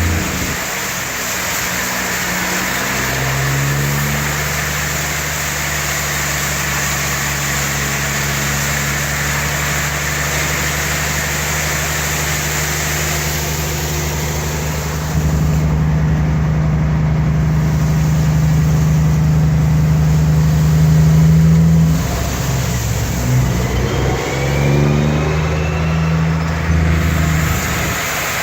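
An engine running at a steady speed. Its note steps up louder about halfway through, breaks off and wavers a few seconds later, then settles again.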